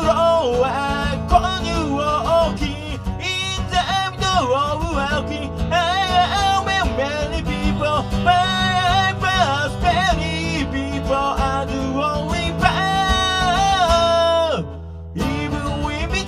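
A man singing a song with his own acoustic guitar strumming chords, the singing and guitar breaking off for about half a second near the end before going on.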